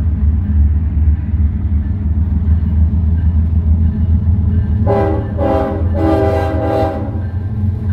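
Diesel freight locomotive approaching with a steady engine rumble. About five seconds in, it sounds its air horn in a few short blasts lasting about two seconds.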